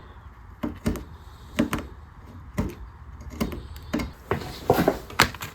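A hand tool scraping and chipping old spackle filler out of a guitar headstock repair down to the wood: irregular short, sharp scrapes and taps, roughly two a second.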